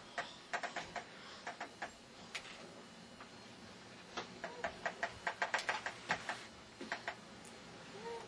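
Rapid runs of plastic clicking and clacking from a baby's plastic push-walker toy as it is pushed and handled: one run about a second in, a longer one from about four to six seconds in, and a few more clicks near seven seconds.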